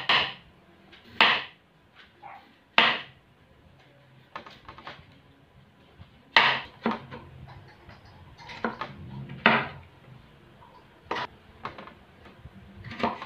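Large kitchen knife slicing a potato and then a carrot on a wooden chopping board: irregular knocks of the blade on the board, a few sharp loud ones and many softer ones, a second or more apart.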